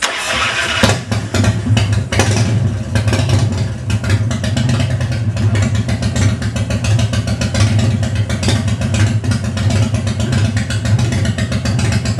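Custom chopper's V-twin motorcycle engine cranking for under a second and catching, then running steadily with an uneven, pulsing idle; it has just been started cold on the choke.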